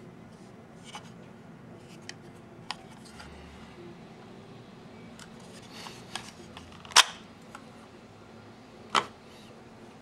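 Red Storm butterfly knife being drawn from its ABS plastic belt sheath: light plastic handling with scattered small clicks, then two sharp clicks about two seconds apart, the first the loudest.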